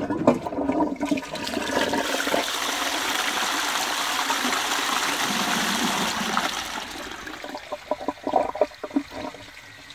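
Restored 1930s 2-gallon cast-iron high-level cistern flushed by its pull chain: a few knocks at the start, then water rushing into the toilet pan for about five seconds, dying away into gurgles and splashes near the end. A tame flush of about 6 litres.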